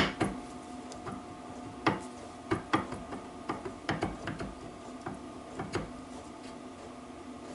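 Metal crankshaft parts being handled and fitted together by hand, giving a dozen or so light clicks and knocks that thin out after about six seconds. A faint steady hum runs underneath.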